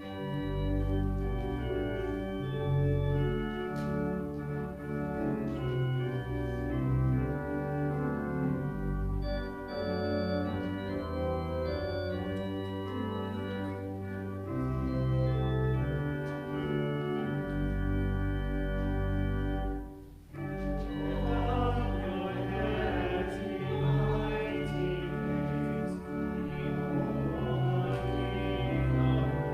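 Church organ playing a hymn in sustained chords, breaking off briefly about two-thirds of the way through, then resuming with a congregation singing along.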